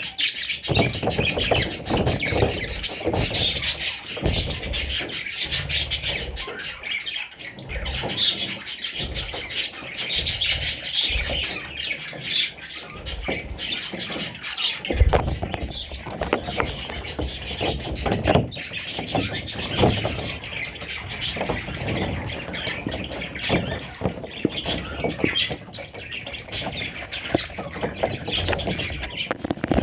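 Budgerigars chirping and chattering, with many small clicks and scratches throughout.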